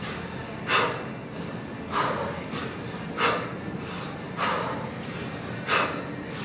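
Sharp, forceful exhales of a man doing kettlebell snatches, about one every second and a quarter, in time with the reps. Every other breath is stronger.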